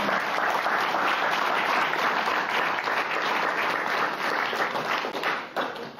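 Audience applauding: many hands clapping in a dense patter that dies away near the end.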